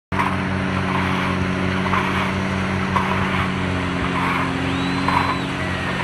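Heavy diesel machinery running steadily on a construction site, a low, even engine hum, with a rushing noise that swells roughly once a second.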